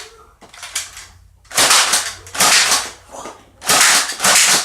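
Toy foam-dart blaster being fired, three loud hissing shots about a second apart with small clicks between them.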